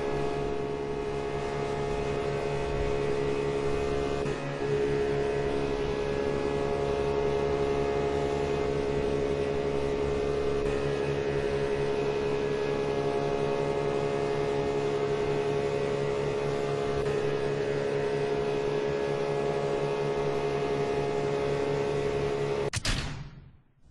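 Kenmore washing machine running, a steady motor hum with a brief dip about four and a half seconds in; it cuts off suddenly near the end.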